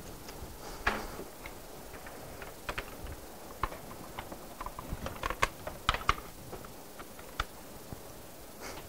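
Irregular clicks and taps of typing on a laptop keyboard, sparse at first and busier in the second half.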